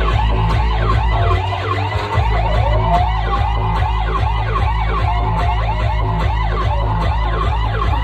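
Loud DJ sound system playing heavy bass under rapid, overlapping siren-like sweeps that rise and fall many times a second. The deepest bass cuts out briefly about a second and a half in.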